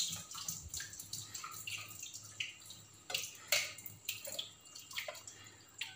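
Husked coconut being struck with a machete over a steel sink to split it open: several sharp knocks, with small drips and trickles of water into the sink between them.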